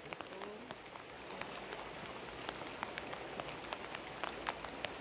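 Rain falling: a steady hiss with scattered raindrops ticking close by.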